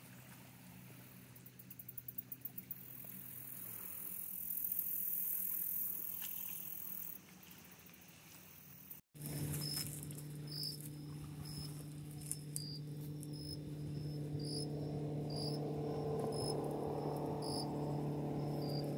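Night insects chirping in a steady rhythm, a high chirp about once a second, over a low steady hum. Before a cut near the middle there is a quieter outdoor background with a brief run of rapid ticks and a high hiss.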